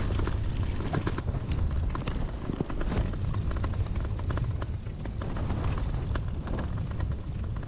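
Wind rumbling on the microphone of a camera mounted on a moving Brompton folding bicycle, with many small irregular clicks and rattles from the bike as it rolls along the path.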